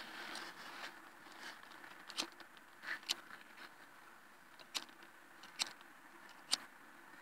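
Handling noise from a phone held in the hand: a few scattered soft clicks and rustles as it is turned and repositioned, over faint outdoor background hum.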